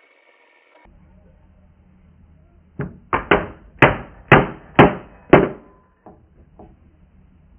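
A hammer striking the underside of a wooden chair seat: seven sharp blows about half a second apart, then two lighter taps.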